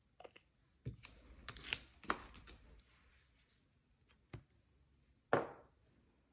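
Nail polish bottles and a clear stamper being handled and set down on a desk: a run of light clicks and a rattle in the first three seconds, a single knock just after four seconds, and a louder knock a little after five seconds.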